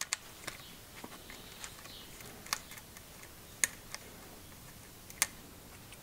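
Light metallic clicks and ticks from a metal valve dust cap being turned on a Schrader valve stem to unscrew the valve core. The clicks are scattered and irregular, with a few sharper ones, over a faint steady hiss.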